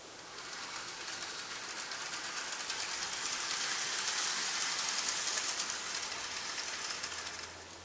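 N gauge model train running along the track: a whirring rattle of small wheels on the rails and the locomotive's motor. It grows louder as the train comes closer, then fades near the end as it moves away.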